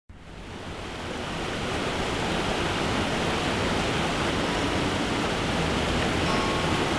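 Rushing white water of a stream cascading over rocks: a steady hiss that fades in over the first couple of seconds and then holds.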